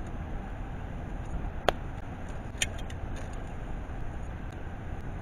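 A wood campfire burning, with two sharp pops from the wood and a few faint ticks over a steady low rumble.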